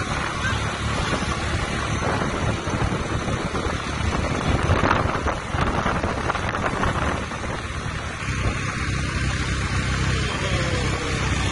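Wind buffeting the microphone over the running engine of a moving road vehicle, with a steadier low engine drone from about eight seconds in.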